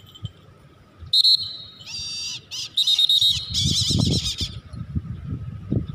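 Brahminy kite calling close by: a run of high, wavering calls starting about a second in and lasting some three seconds. Low rumbling thumps come in during the second half.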